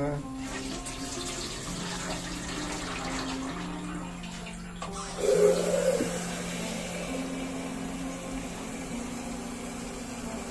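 Water poured from a plastic jug into a stainless steel steamer pot, then a tap running into the plastic jug from about five seconds in, loudest just after the tap starts.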